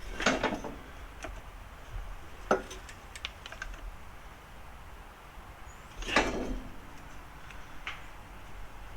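Metal suspension parts and tools clanking and scraping during work on a Jeep's front axle: two short scraping clunks, about a second in and again near six seconds, a sharp clink between them, and a few light ticks.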